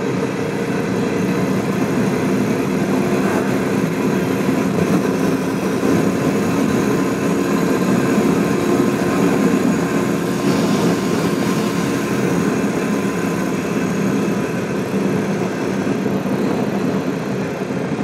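Royal Enfield Classic 350's single-cylinder engine running steadily under load in fifth gear at road cruising speed, with wind rush on the helmet microphone.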